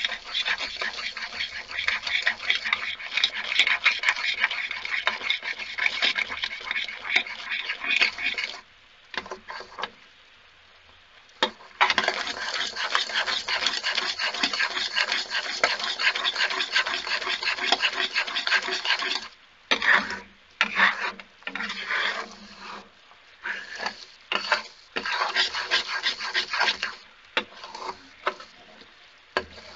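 Steel spatula scraping and stirring boiling jaggery syrup in an iron kadhai. Continuous scraping for most of the first twenty seconds, with a pause around nine to eleven seconds, then slower separate strokes.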